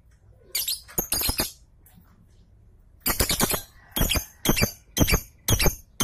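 Caged lovebirds chattering with shrill, squeaky chirps: a few calls about a second in, then a steady run of about two a second from about halfway.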